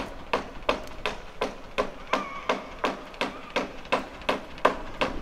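Sharp taps or knocks, evenly spaced at about three a second, with a faint brief tone near the middle.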